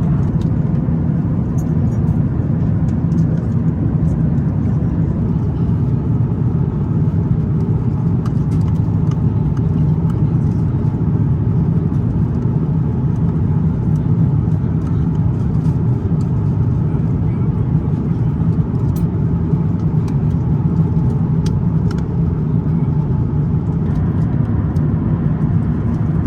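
Airbus A350-900 cabin noise: a steady, even rumble of engines and airflow heard from an economy seat, with a few faint ticks.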